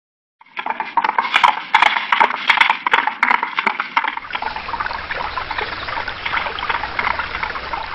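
Cartoon sound effects: a horse's hoofbeats, a rapid uneven run of knocks, then from about four seconds in the steady rush of a flowing stream.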